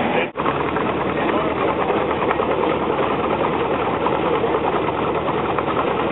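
Steam traction engine running steadily under belt load while driving a wheat thresher, with a fast, even mechanical beat. The sound drops out for an instant about a third of a second in.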